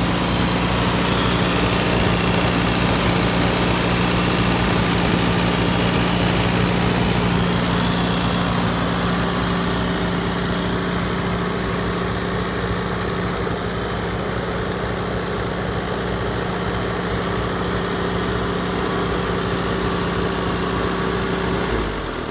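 1960 Allis-Chalmers D14's four-cylinder gasoline engine running steadily. Right at the end its pitch drops and the sound begins to fade, as the engine slows.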